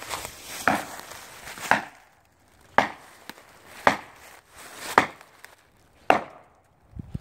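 Hammer blows driving felling wedges into the back cut of a big poplar, one sharp strike about every second, seven in all. The tree is close to going over.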